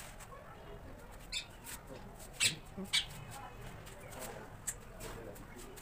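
A few sharp clicks and taps, the loudest two close together about halfway through, over faint background voices.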